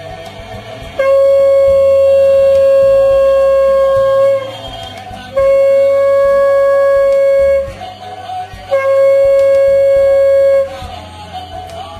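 Conch shell (shankha) blown three times for the evening sandhya puja: three loud, long steady notes, the first about three seconds, the next two about two seconds each, with short gaps between.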